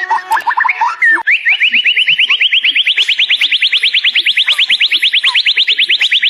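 Murai songbird singing a fast, even trill of rapidly repeated rising notes, about ten a second. About a second in, the song jumps to a higher pitch and then climbs slightly.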